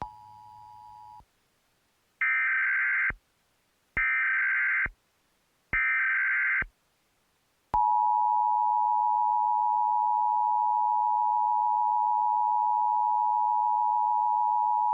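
Emergency Alert System tones. A faint brief two-tone beep comes first. Then three bursts of SAME digital header data, each about a second long and about a second apart, and from about 8 seconds in the steady two-tone EAS attention signal (853 and 960 Hz), which holds on. Together these signal the start of an emergency alert, here a national test.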